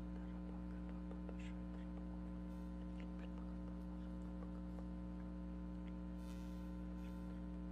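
Steady electrical mains hum in the recording, with a few faint, brief sounds and a short hiss about six seconds in.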